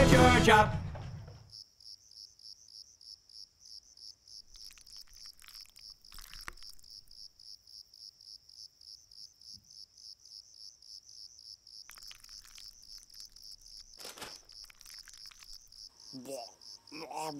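Rock song cuts off about a second in, leaving crickets chirping in an even, steady rhythm. A few faint rustles and a short vocal sound come near the end.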